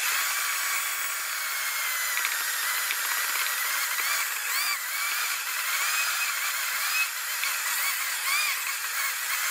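Stainless-steel Vita-Mix blender running at high speed, grinding cashews into nut butter while a wooden tamper pushes them into the blades. The audio is sped up, so the motor is heard as a high, hissy whine with small rises and falls in pitch.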